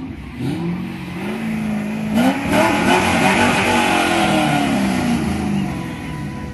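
Sports car engine revving in short blips, then accelerating. The engine note is loudest about two to three seconds in, then slowly falls in pitch and fades.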